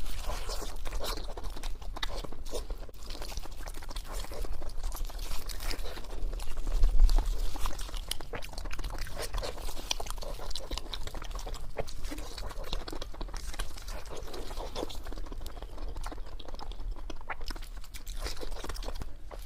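Chewing on crisp fried pork: irregular crunching and crackling bites, with mouth sounds.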